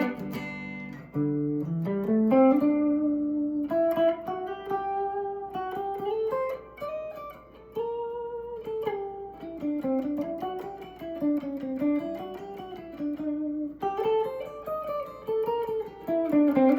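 Electric guitar in its double-coil pickup setting, played through an amp: a couple of chords at the start, then a slide up about a second in, and single-note lead lines with string bends and vibrato.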